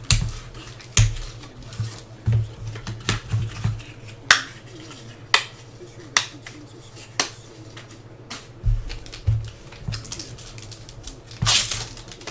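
Sharp clicks and snaps, about one a second at irregular spacing, from trading cards and their packaging being handled while a box is opened; a steady low hum runs underneath.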